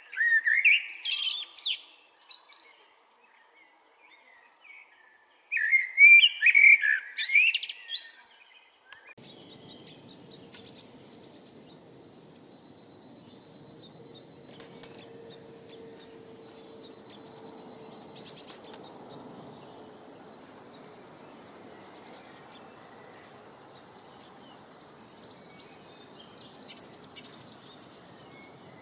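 Songbirds singing: two loud, fast phrases of high, gliding chirps in the first eight seconds, with a pause between them. After about nine seconds it gives way to a steady rushing background with many fainter, high chirps from several birds.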